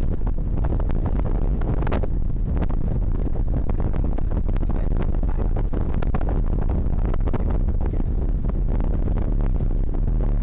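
Strong wind of over 22 knots buffeting the microphone: a loud, steady low rumble with constant crackling.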